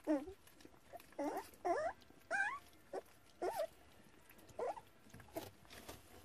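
Puppies squeaking and yelping as they wrestle: a string of about seven or eight short, high cries, each bending in pitch.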